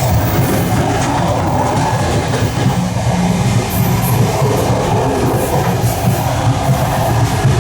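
Passenger train car running, heard from inside its vestibule: a steady loud rumble of the wheels on the rails.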